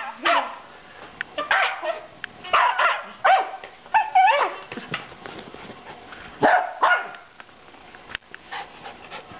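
Young puppy barking in excited play at a toy, a string of short, sharp barks with fewer and fainter ones in the last couple of seconds.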